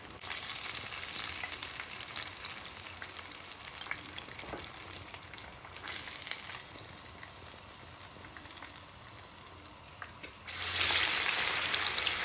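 Floured cod frying in a pan of hot oil: a steady sizzle with scattered small pops. The sizzle grows suddenly much louder near the end.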